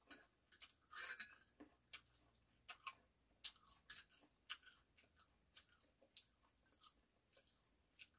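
Faint chewing and wet mouth clicks of someone eating sliced persimmon, a string of irregular soft clicks and smacks.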